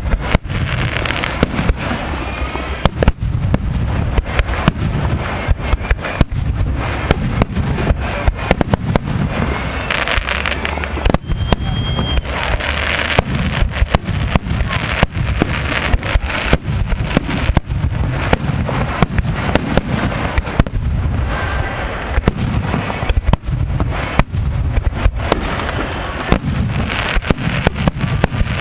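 Fireworks display in a continuous barrage: many sharp bangs from bursting aerial shells coming fast and unevenly over a constant crackle, without a pause.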